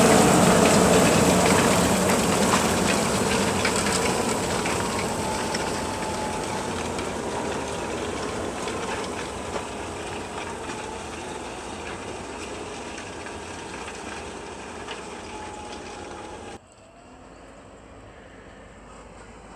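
Fendt 724 tractor working under load as it pulls a six-furrow reversible plough, its engine sound fading steadily as it moves away. The sound drops suddenly about three-quarters of the way through.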